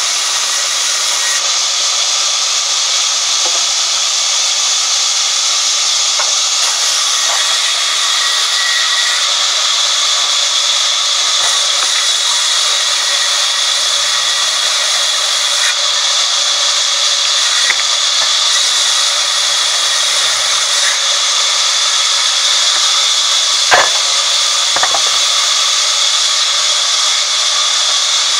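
Sawmill band saw ripping a timber plank lengthwise: a loud, steady, high sawing hiss. About three-quarters of the way through come two sharp knocks about a second apart, the first the loudest sound.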